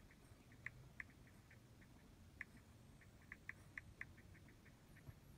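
Faint, irregular ticks of typing on a Samsung smartphone's touchscreen keyboard, about a dozen keystrokes as a Wi-Fi password is entered.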